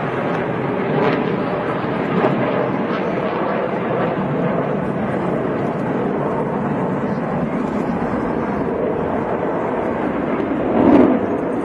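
Jet engine noise from Blue Angels F/A-18 Hornets flying in formation, a steady rush with a brief louder swell near the end.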